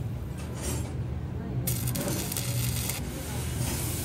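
Truck repair workshop sounds: a steady low machine hum, a stretch of hissing through the middle, and light metal clinks.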